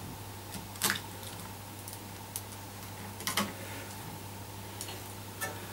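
Craft knife and steel straight edge working a vinyl decal on a pinball cabinet: scattered sharp clicks and short scrapes, the loudest about a second in, about three and a half seconds in and near the end, over a low steady hum.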